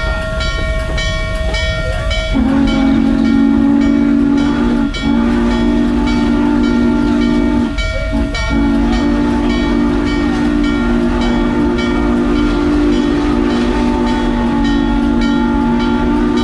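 Steam locomotive chime whistle, the whistle of Norfolk & Western 611, blowing a steady chord of several notes: two long blasts, then a much longer one held to the end. It sounds over the regular beat of the moving train.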